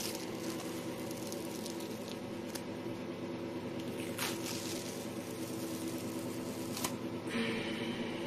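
Soft rustling and a few brief crackles as an adhesive detox patch is peeled off skin and handled, over a steady low hum.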